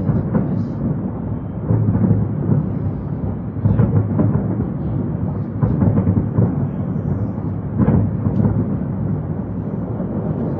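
Distant fireworks display bursting in a dense barrage: many shell bursts merge into a continuous low rumble, with louder bangs about every two seconds.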